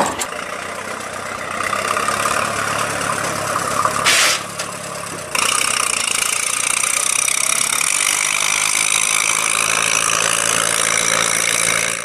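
Allis-Chalmers WD tractor's four-cylinder engine running steadily. There is a short loud burst of noise about four seconds in, and the sound changes abruptly a second later.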